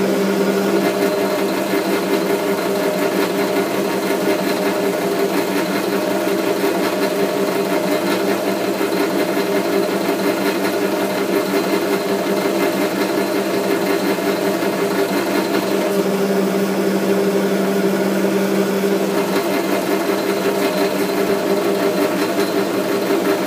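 South Bend metal lathe running under power with a steady gear-train hum while single-point cutting a 1-inch UNS thread on a steel arbor. The low tone in the hum drops away about a second in and comes back near the end.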